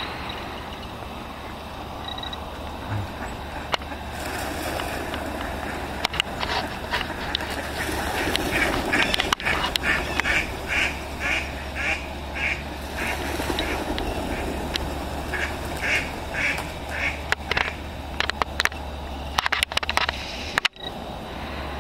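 Mallard ducks quacking: a run of about ten quacks in a row at two or three a second, then a shorter run of four or five a few seconds later.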